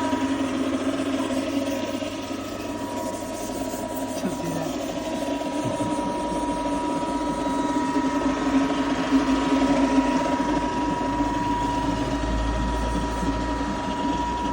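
Excavator's diesel engine running steadily with a thin, constant high whine. A deeper low rumble builds from about six seconds in.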